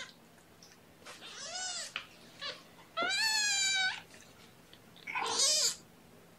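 A cat meowing four times, the loudest a long, rising then held meow about three seconds in.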